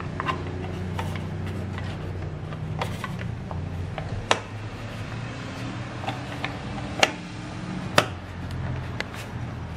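Plastic roof-rack crossbar end cap being pressed down over the bar's foot, giving a series of sharp clicks as its clips snap into place. The loudest clicks come about four, seven and eight seconds in, over a steady low hum.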